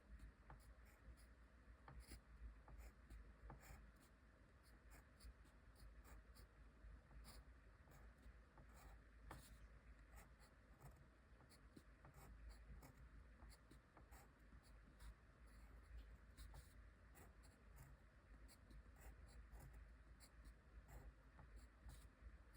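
Faint handwriting on paper: short scratching strokes and small ticks of the writing tip in an irregular rhythm, over a low steady hum.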